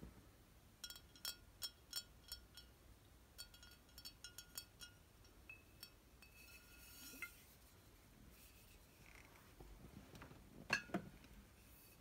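A glass wine bottle being tapped in two quick runs of light clinks, each tap ringing briefly at the same glassy pitch, followed by a few fainter clinks. A single louder clunk sounds near the end.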